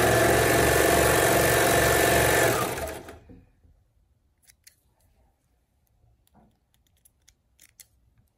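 Baby Lock Imagine serger running steadily as it stitches a seam, then slowing and stopping about three seconds in. A few faint snips follow as scissors cut the serger's thread chain.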